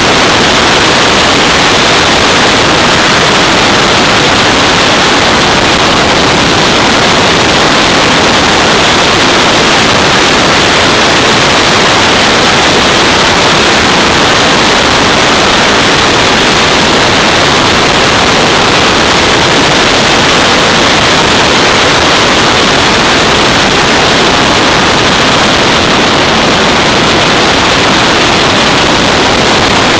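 Loud, steady wind rush on the microphone of a motorcycle moving at road speed. It is an even hiss with no clear engine note coming through.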